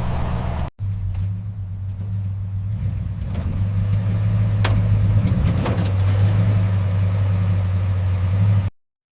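Car engine running at a steady idle, with a brief break shortly after the start and a few light clicks midway, then cutting off abruptly near the end.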